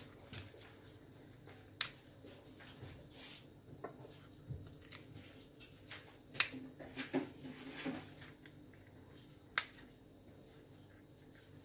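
Sharp little snaps with soft rustling between, from fingers plucking the stamens out of squash blossoms and handling the petals.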